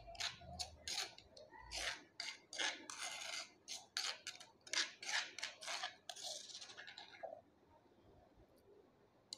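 Spoon scraping thick almond paste out of a stone kundi mortar in quick, repeated strokes, about two a second, with one longer scrape near the end before it stops.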